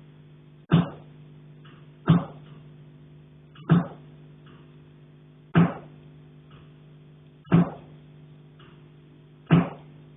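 Repeated knocking on a pipe in the attic, heard through the building: six single sharp knocks about every one and a half to two seconds, each ringing briefly, over a steady low hum.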